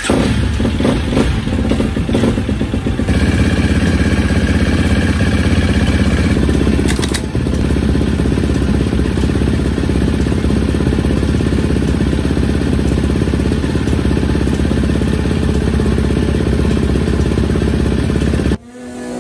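KTM dirt bike engine running on a stand with the rear wheel spinning, being test-run to check that a JB-Weld repair of its magnesium engine cover holds oil. It runs unevenly with some clatter for the first few seconds, then settles to a steady run, and cuts off suddenly near the end.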